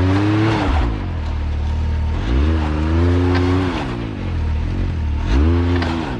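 Side-by-side UTV engine revving in three short throttle bursts while rock crawling. Each one rises in pitch, holds for a moment, then drops back.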